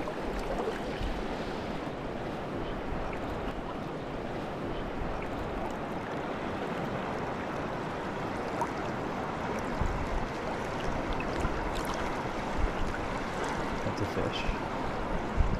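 River current rushing and swirling past close to the microphone, a steady flowing-water noise.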